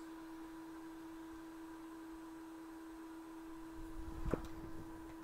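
A steady pitched hum with a fainter, higher tone above it, and a short soft knock about four seconds in.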